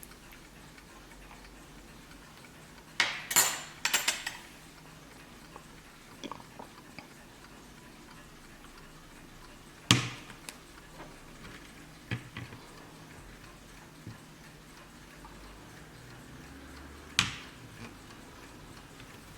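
Warmink WUBA oak mantel clock ticking quietly, broken by a few sharp clicks and knocks: a quick cluster about three seconds in, then single louder ones near the middle and near the end.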